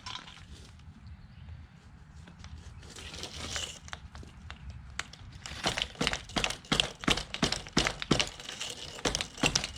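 A run of sharp, irregular crackles and clicks, about two or three a second, starting about halfway through after a quieter stretch with a faint rustle.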